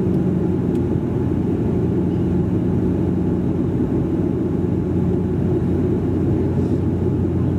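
Bombardier Dash 8 Q400 turboprop cabin noise in flight: the steady, low hum of the propellers and engines at an unchanging pitch, over a rush of airflow.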